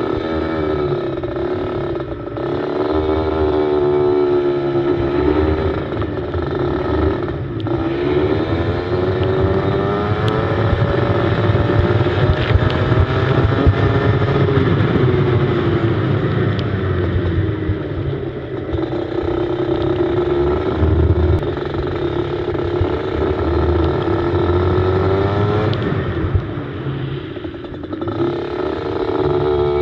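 Go-kart engine running hard from on board, its revs climbing in long sweeps and dropping sharply a few times as the kart slows, then picking up again.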